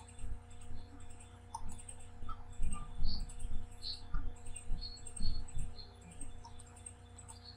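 Scattered clicks and soft irregular knocks from a computer mouse and keyboard being used at a desk, over a steady electrical hum.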